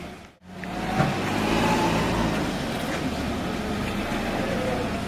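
A car's engine running close by in the street, with steady street noise; the sound comes in after a brief dropout, and there is a sharp knock about a second in.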